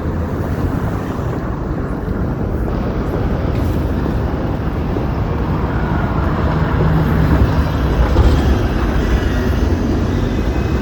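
Steady outdoor street noise: a low traffic rumble that swells a little about two-thirds of the way through.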